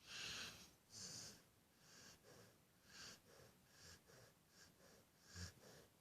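Rottweiler-Beagle mix dog asleep, snorting and snuffling through its nose. Two louder snorts come first, then a run of quicker, shorter breaths about two a second, one of them with a low thump near the end. Faint.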